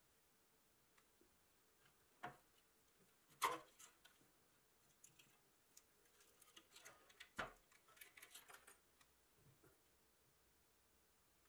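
A few sharp clicks and small metallic taps and scrapes from handling a rusty pressed-steel toy truck and its loose metal parts on a wooden bench. The loudest click comes about three and a half seconds in, and a quick run of small ticks follows later.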